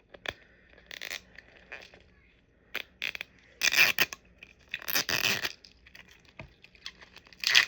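Plastic packaging of a Mini Brands mystery ball being handled and torn open: a few small clicks, then bursts of rustling and tearing about four and five seconds in and again near the end.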